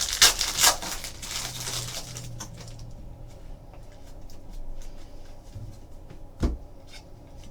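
Trading card packs and cards being handled: a loud rustle of wrapper and sliding cards in the first couple of seconds, then faint ticks and shuffling, and one sharp tap about six and a half seconds in.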